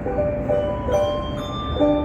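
Handbell choir playing a quick rhythmic piece, the bells struck with mallets, giving a marimba-like sound. Chords of bright ringing notes land about twice a second, each ringing on briefly.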